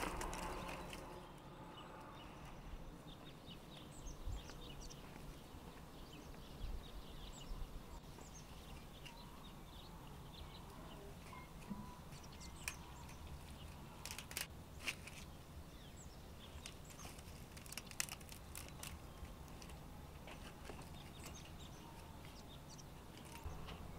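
Faint rural ambience with scattered short bird chirps and a few light clicks.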